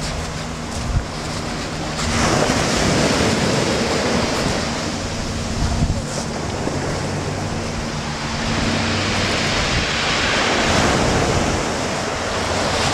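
Small sea waves breaking and washing up a shingle beach in a steady rush. The surf swells louder about two seconds in and again around ten seconds.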